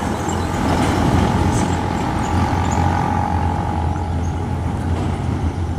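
Heavy Hino diesel trucks carrying excavators driving slowly past, with a steady low engine drone and a thin whine that fades about four seconds in.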